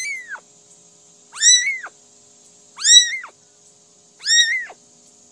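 A cat meowing four times, each a high-pitched meow of about half a second that rises and then falls, about one and a half seconds apart.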